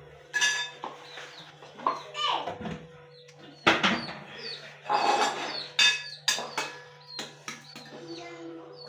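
Plates, pots and spoons clinking and knocking at irregular moments while food is dished out, with birds chirping in the background.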